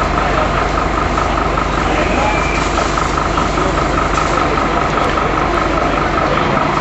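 Fire engine's diesel engine running steadily, with a steady high whine over it, as it drives the pump feeding the hoses.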